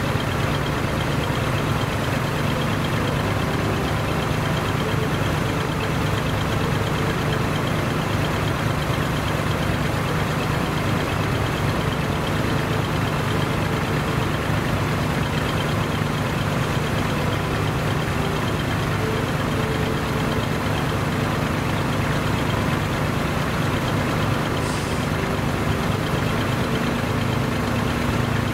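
Large diesel truck engine idling steadily, a constant low rumble; a slightly higher steady hum joins near the end.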